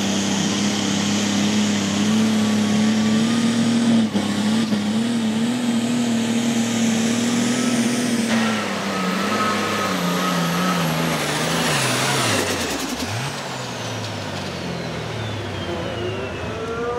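A turbocharged diesel pro stock pulling tractor runs hard and steady under load for about eight seconds. Its revs then fall away, dip sharply low and pick back up. A high whistle slides steadily down near the end.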